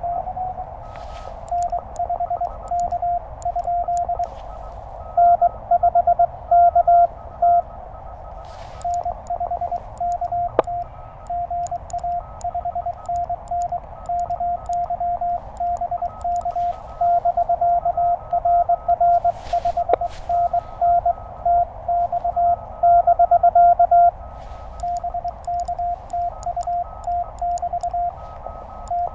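Morse code from a Penntek TR-35 QRP transceiver: a steady tone of about 700 Hz keyed into dots and dashes over receiver hiss, as a CW contact is exchanged. Some passages are louder than others.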